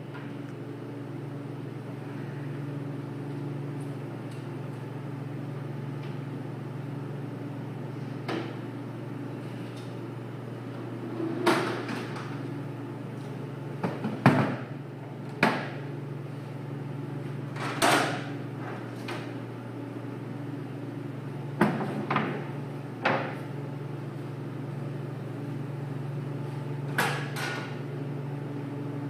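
Scattered metal clanks and knocks as a band saw is taken apart and its sliding carriage released and lifted off, about a dozen of them, thickest toward the middle, over a steady low hum.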